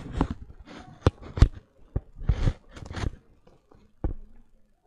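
Irregular knocks and bumps, about six of them, with short bursts of rustling and breathy noise, close to the microphone.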